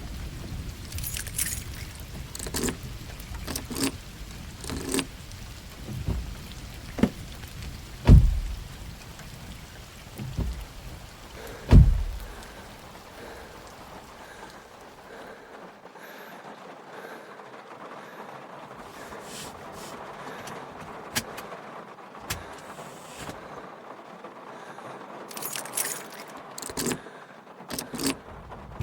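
Stock sound-effect sequence of steady rain, with scattered clicks early on and two heavy low thumps about a second and a half to four seconds apart, around eight and twelve seconds in. The rain turns thinner for the second half, and near the end a set of keys jangles, just before a car engine starts.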